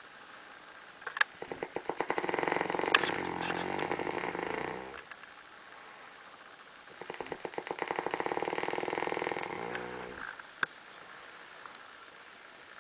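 A man snoring: two long, rattling snores of about four seconds each, with a quieter pause between them.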